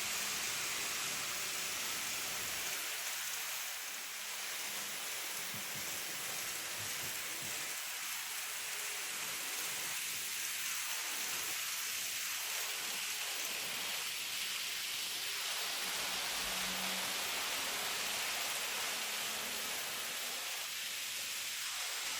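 N gauge model trains running on the layout: a steady rolling hiss of small wheels on the track, swelling and fading several times as trains pass, with a faint motor hum now and then.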